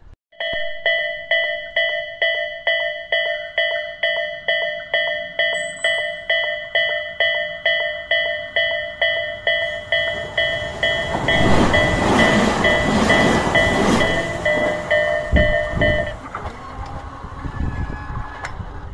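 Level-crossing warning bell ringing steadily about twice a second, while a Tobu 500 series Revaty electric train approaches and passes. The train's rush is loudest for a few seconds about two thirds of the way in, and the bell stops shortly after.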